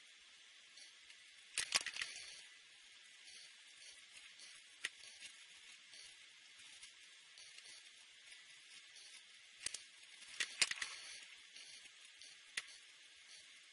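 Felt-tip marker working on paper: faint scratching over a steady hiss, with a few sharp taps of the tip. There are clusters of taps and scratches about two seconds in and again around ten to eleven seconds in, and single ticks in between.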